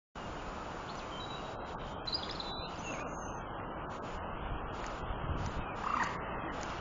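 A steady outdoor rush of noise with birds calling over it, short high chirps through the middle and one harsher call about six seconds in.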